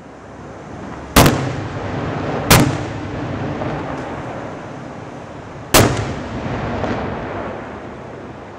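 Daytime festival fireworks going off overhead: three loud bangs, about a second in, about two and a half seconds in and near six seconds in, each trailing off in a long echoing rumble.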